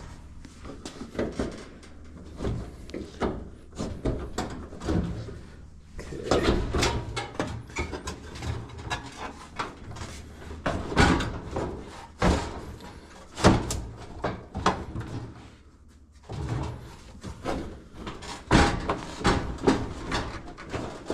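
Irregular knocks, clunks and scraping of the panels of a Whirlpool Duet washer being worked loose and pulled off during disassembly, with a few sharper knocks, one of the loudest about halfway through.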